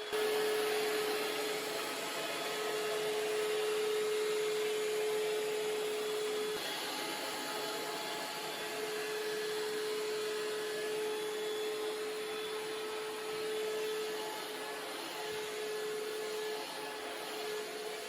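Vacuum cleaner running steadily: a rushing hiss with a steady motor whine that drops out briefly about six seconds in.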